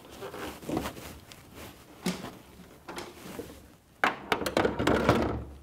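Handling noise as the SMA Sunny Boy Smart Energy battery module is carried and lifted to the wall. About four seconds in comes a loud run of knocks and scrapes as its housing is hooked onto the wall mounting bracket.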